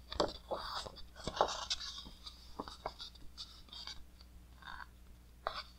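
A large glossy page of an oversized Taschen art book being turned by hand: stiff paper rustling and crackling in short, irregular crinkles. They are loudest in the first two seconds, with another sharp crackle near the end.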